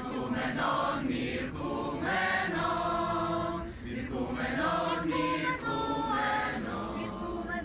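Youth choir singing a Yiddish song a cappella, many voices together in held, sustained notes.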